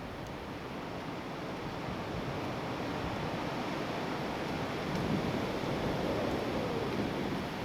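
Strong gusty wind: a steady rushing noise that swells about five seconds in, with some wind buffeting on the microphone.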